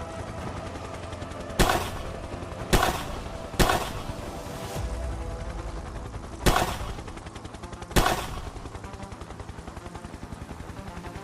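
Five rifle shots, unevenly spaced: three in quick succession, then two more a few seconds later. They sound over a steady background drone.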